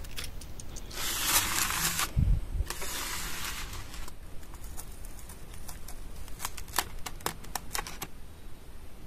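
Close handling noise of hands working on a foam model boat: two scraping rustles of about a second each with a dull thump between them, then a run of small sharp clicks.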